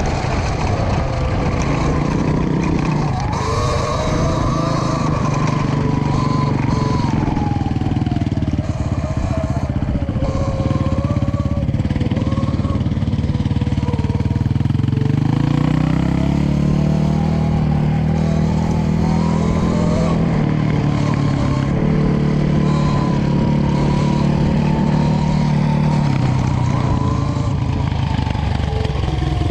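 E-Ride Pro SS electric dirt bike riding on dirt, its motor whining up and down in pitch as the rider speeds up and eases off, over a steady rumble of wind and tyre noise.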